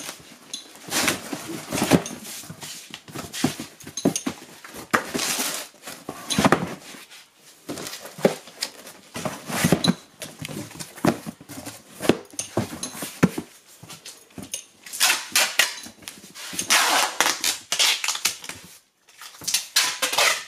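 Cardboard firework boxes being handled and packed into a cardboard carton: irregular knocks, thumps and cardboard scrapes. There are longer scraping, rustling stretches after about fifteen seconds.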